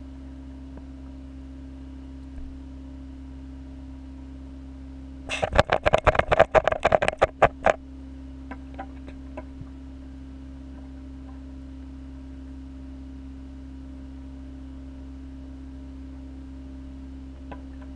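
Steady low hum of running aquarium equipment. About five seconds in, a loud flurry of rapid clicks and knocks lasts a little over two seconds, followed by a few faint clicks.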